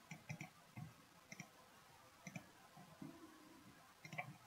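Faint computer mouse clicks, scattered irregularly, some in quick pairs, as dropdown menus are opened and selections made.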